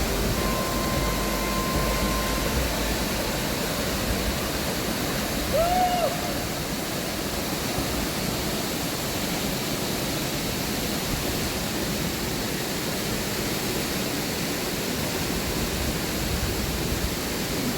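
Waterfall rushing, a steady even roar of falling water. About six seconds in, a brief note rises and falls over it.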